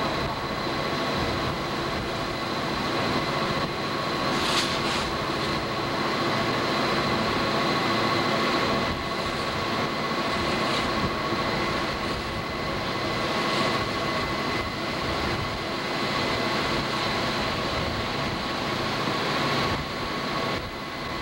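A consist of CSX diesel-electric locomotives working hard at the head of a coal train, heard from beside the lead unit: a steady engine drone mixed with wheel and rail noise. A steady high-pitched whine rides on top, with a few brief sharper squeals.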